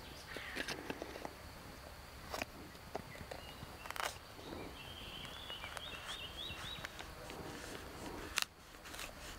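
Knife blade scraping and cutting into the trama layer of a tinder fungus: irregular light scrapes with a few sharp ticks. A short run of high bird chirps comes about halfway through.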